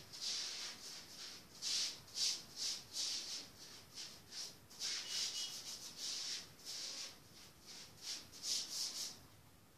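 Rubbing or scratching: an irregular series of short, hissy strokes, about two or three a second, which stop shortly before the end.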